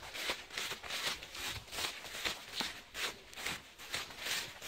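Footsteps walking through long grass, each step a soft swish, about two a second.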